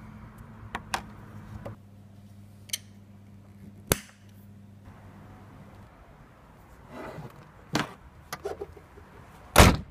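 Sharp metal clicks and a short high ringing tick of a flat-blade screwdriver prying at the metal retaining clip on a gas strut's ball-socket end fitting, over a low steady hum. Later come scattered knocks and one loud thump near the end.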